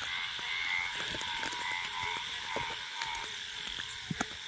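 Night chorus of frogs and insects: a steady high insect trill with short frog calls repeating about twice a second. Footsteps crunch on a dirt track, with a couple of sharper knocks near the end.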